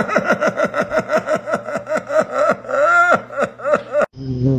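A person laughing in a rapid, rhythmic run of about four or five falling-pitched bursts a second, cut off suddenly about four seconds in, followed by a short, lower, steadier-pitched sound.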